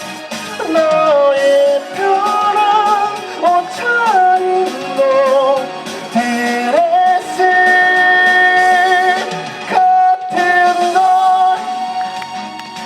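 Live pop song sung over instrumental backing, the voice moving through wavering, sustained notes with one long held note in the middle.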